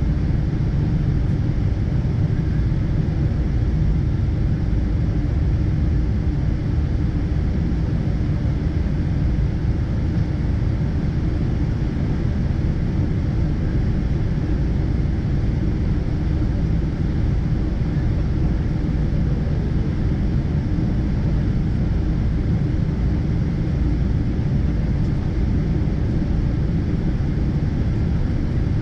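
Inside the cabin of a Boeing 777-200ER: a steady low rumble from the engines and airframe, with no change in pitch or level.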